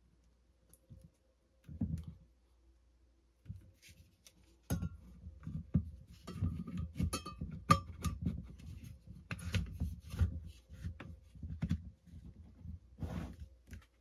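Hands handling and fitting parts on a DeWalt cordless drill body rigged as an air horn: scattered plastic clicks, knocks and small rattles, a few at first and then busy from about five seconds in.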